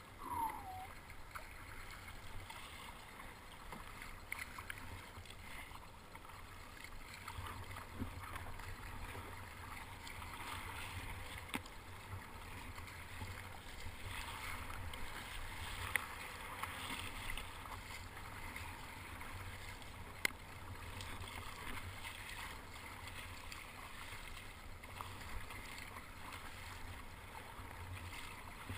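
Choppy sea water splashing and sloshing against a sit-on-top kayak's hull as it is paddled, with paddle blades dipping in. A brief falling squeak right at the start, and a couple of sharp knocks later on.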